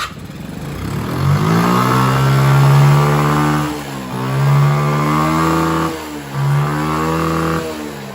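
Small 50cc moped engine, running without its clogged air filter, revved up three times, its pitch rising and falling back each time.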